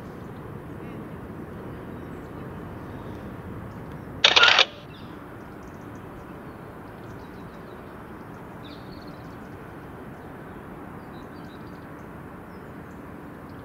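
Steady outdoor background noise, mostly a low rumble, broken about four seconds in by a sudden loud burst of noise lasting about half a second; a few faint high chirps come later.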